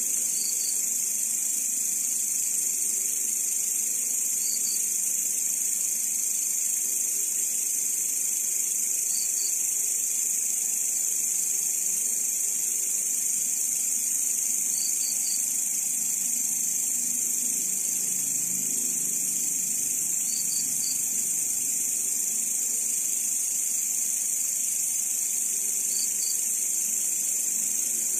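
Grasshoppers stridulating at night: a steady, high-pitched continuous buzz, with a short chirp repeating about every five seconds.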